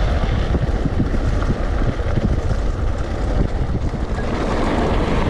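Wind buffeting the microphone over the low rumble of an electric mountain bike riding a rough, rain-soaked trail.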